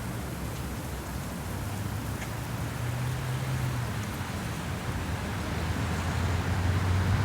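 Strong wind buffeting the microphone, a rough rumbling rush. About a second and a half in, the low hum of a passing motor vehicle comes in and grows louder toward the end.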